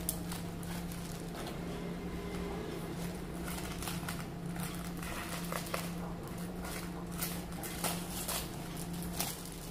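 Plastic mailer bag and plastic wrapping crinkling and crackling in irregular snaps as a parcel is cut open with scissors and unwrapped, over a steady low hum.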